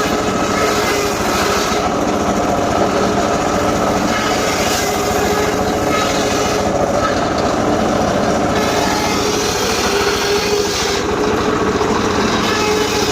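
A small engine-driven saw running steadily at high speed, without let-up, while cutting gmelina wood.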